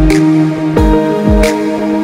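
Background electronic music: held synth tones over a deep bass drum that drops in pitch on each beat, with a sharp hit at the start and again about a second and a half in.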